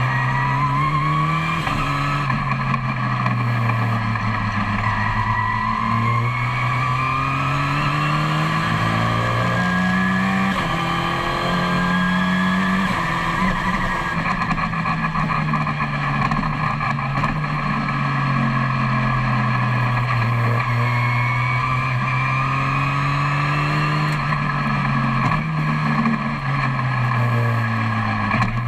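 Mitjet Supertourisme Turbo race car's Oreca 2.0-litre turbo engine at racing speed, heard from inside the cockpit. The engine note repeatedly climbs and then drops in steps as the sequential gearbox shifts up and down through the corners.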